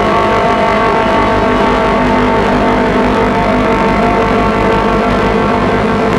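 Colossus Audio "The Hum" drone instrument sounding a dark, unbroken drone: a dense stack of sustained tones over a rough, noisy low end, at a constant loud level, with reverb added.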